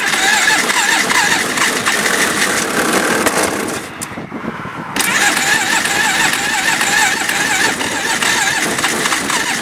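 ATV's electric starter cranking a cold engine that does not catch: a wavering whine for nearly four seconds, a pause of about a second, then a second, longer crank.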